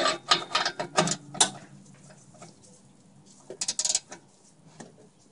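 Ratchet with an O2 sensor socket clicking in quick runs as it is worked back and forth to tighten an oxygen sensor into its spacer on the exhaust. The first run fills the first second and a half, and a shorter one comes about three and a half seconds in.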